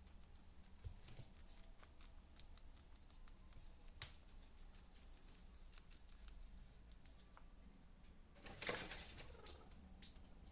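Guinea pig chewing vegetables: faint, quick crunching clicks, with one louder burst of crunching about eight and a half seconds in.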